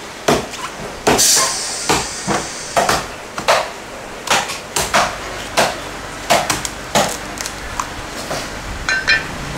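A cleaver chopping into a green young coconut on a wooden chopping block. The sharp, hard chops come one or two a second throughout.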